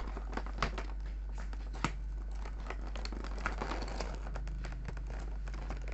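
Toy packaging being worked open by hand: irregular crinkling, tearing and clicking, with one sharp click about two seconds in.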